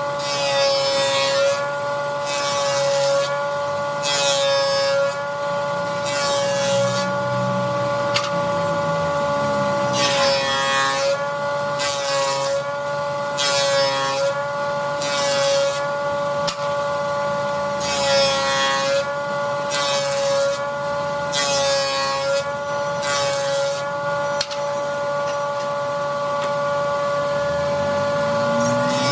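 A woodworking power tool running with a steady motor whine, its cutter biting into wood in short, noisy passes every second or two.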